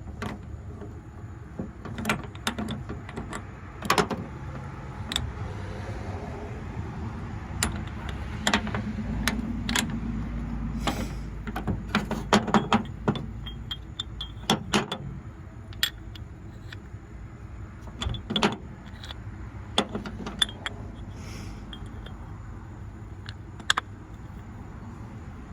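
Metal parts of a Stripmeister wire stripper clicking and clinking as it is reassembled by hand, with many scattered sharp knocks over a steady low rumble.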